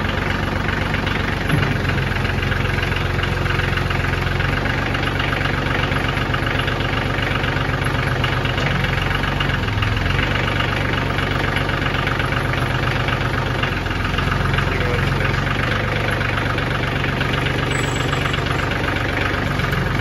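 Kioti DS3510 tractor's three-cylinder diesel engine idling steadily, its note shifting a few times as the front loader's hydraulics are worked with the joystick.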